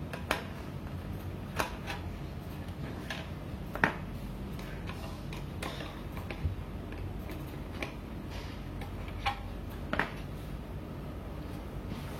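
Light clicks and taps of a Phillips screwdriver and small screws as the long screws are backed out of a mini PC's bottom panel, coming at uneven intervals over a low steady hum.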